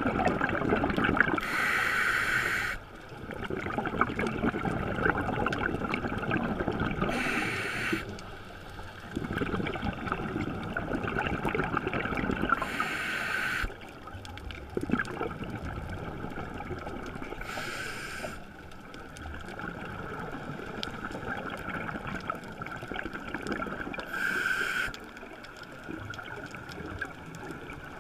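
A scuba diver breathing through a regulator, heard underwater: a short hiss of air about every five to six seconds, with a rumble of exhaled bubbles between the hisses.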